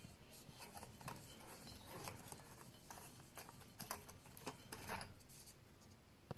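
Faint scattered clicks and short rubbing sounds of light bulbs being unscrewed from a ceiling fan's light fixture.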